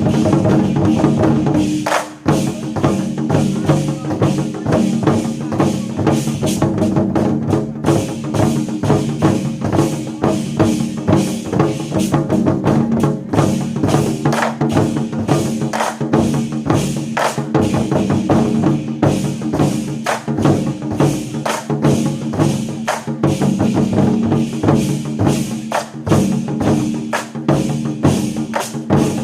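Chinese war drums (zhangu) played by a drum troupe in a fast, dense rhythm of strikes over pitched backing music.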